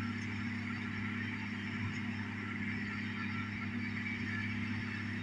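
New Holland tractor's diesel engine running with a steady, even drone as it pulls a disc harrow across the field.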